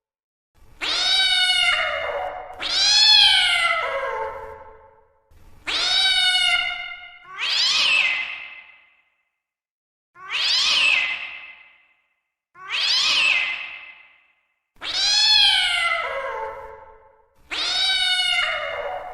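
Domestic cat meowing repeatedly: about eight drawn-out meows, each rising then falling in pitch, separated by short pauses.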